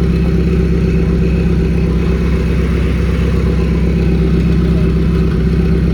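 Car engine idling steadily, an even low hum that holds the same pitch throughout.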